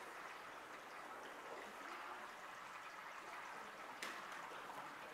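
Faint, steady background hiss like running water, with one sharp knock about four seconds in.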